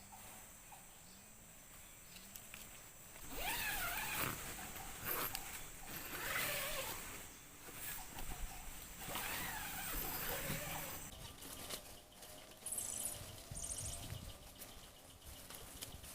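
Tropical forest ambience: insects shrilling steadily, with loud animal calls rising and falling in pitch from about three seconds in until about eleven seconds, then short high insect chirps.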